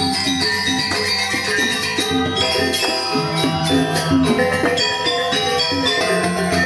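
Balinese gamelan music accompanying the Rejang dance: bronze metallophones struck in quick, ringing notes over sustained lower tones.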